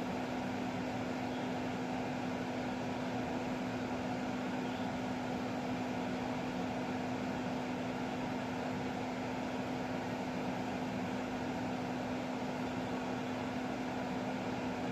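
Steady machine hum with an even hiss, like a household fan or appliance running, carrying one constant low tone.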